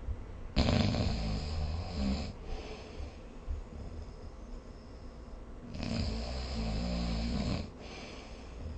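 Snoring: two long snores, each about two seconds, about five seconds apart, with quieter breathing between.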